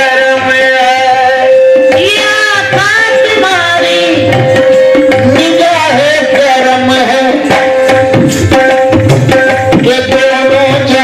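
Devotional song with tabla drumming: a singing voice in gliding melodic lines over regular drum beats, with a steady note held underneath throughout.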